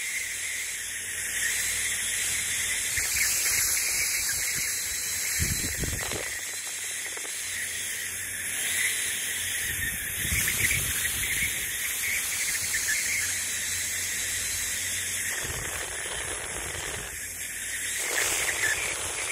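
Laser marking machine engraving a stainless steel plate: a steady high hiss with a faint squeal, swelling and easing a little as the beam works.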